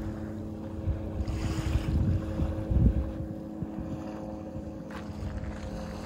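A distant engine drones steadily at an unchanging pitch, with gusts of wind buffeting the microphone.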